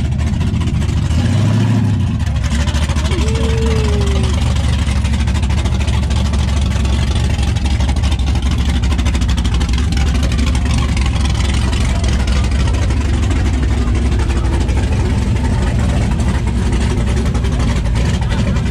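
Car engines idling with a steady deep rumble, with a brief change in the engine note about a second and a half in.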